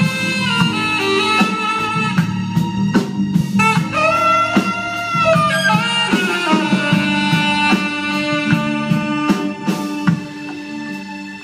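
Live jazz band playing: a saxophone leads with a sliding, bending melody and a long held note about halfway through, over drum kit and low accompaniment. The band grows quieter near the end.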